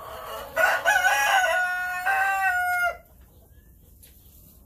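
A rooster crowing once: a crow of about two seconds that steps through a few notes and ends on a long held note, then cuts off sharply.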